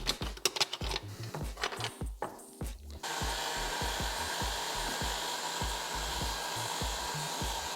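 Workbench clicks and knocks of parts being handled, then about three seconds in an electric tool starts suddenly and runs with a steady, even whir.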